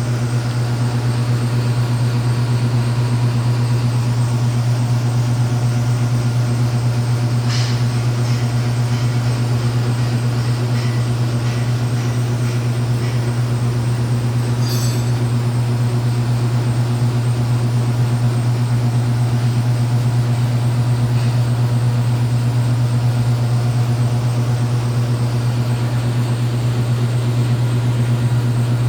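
AC TIG welding arc on aluminum: a steady, loud low buzz with hiss over it, broken by two brief crackles about seven and fifteen seconds in.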